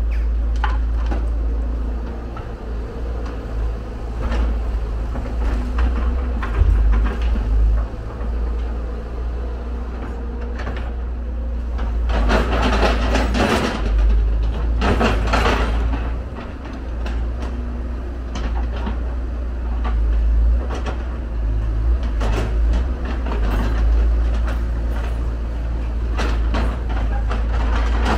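Hyundai R170W wheel excavator's diesel engine running steadily with a low drone as it digs. About twelve seconds in, the steel bucket scrapes and grinds through rocky soil in two harsh bursts, each a second or two long.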